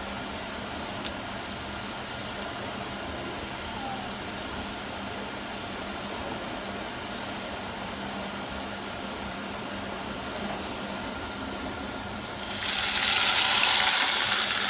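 Garlic, whole dry red chillies and cumin seeds sizzling steadily in hot oil in a frying pan. About twelve and a half seconds in, the hot tempering is poured onto yogurt raita and a much louder sizzling hiss rises sharply and holds.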